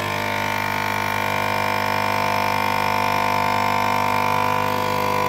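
Nespresso NX100 capsule machine's vibratory water pump running with a steady loud buzz, pumping against a capsule to build brewing pressure.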